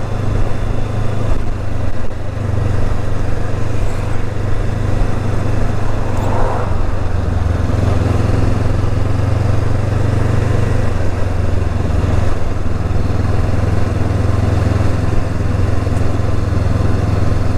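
Motorcycle engine running steadily while riding at low speed, with road and wind noise.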